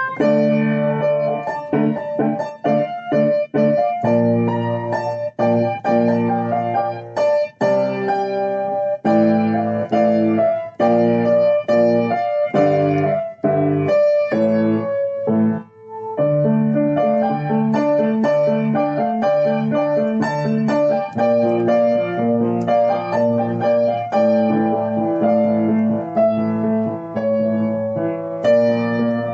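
Piano music, a steady flow of chords and melody notes with a short pause about sixteen seconds in.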